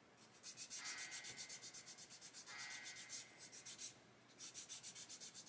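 Sanding stick rubbed quickly back and forth along plastic model tank track links, taking off the sprue nubs. The strokes come about five a second, with a brief pause about four seconds in.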